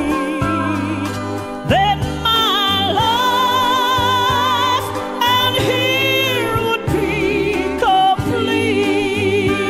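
Gospel music: long held sung notes with vibrato, sliding up into a high note about two seconds in, over a steady bass and band accompaniment.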